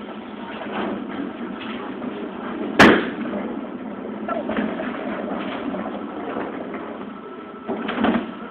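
Bowling alley din of rolling balls and distant pin noise, with one sharp knock about three seconds in and a couple of lighter knocks near the end.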